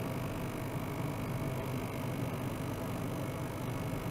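Small ultrasonic cleaning bath running: a steady low hum with a faint, steady higher tone above it.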